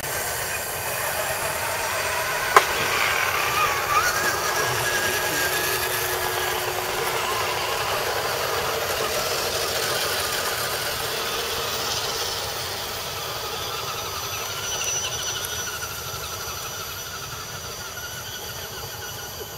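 Several radio-controlled scale crawler trucks driving over a dirt trail: the whine of their small electric motors and geared drivetrains, wavering in pitch with the throttle. A single sharp click sounds about two and a half seconds in, and the sound grows quieter near the end.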